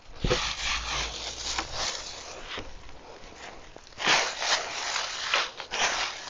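Dry leaves and compost rustling and crunching in irregular bursts as they are scooped and dug by hand in a wooden compost bin, with a sharp knock near the start.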